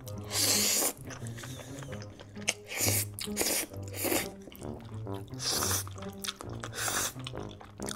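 Slurping creamy pasta noodles and chewing, with several loud slurps, the loudest about half a second in. Background music with a steady low bass line plays underneath.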